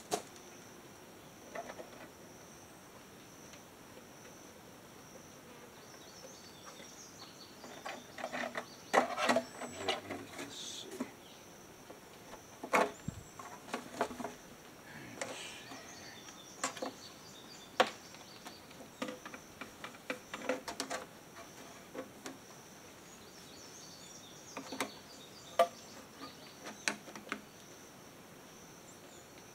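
Scattered knocks, taps and clatter of downspout sections and elbows being handled and fitted together, thickest about a third of the way in, over a steady high insect drone.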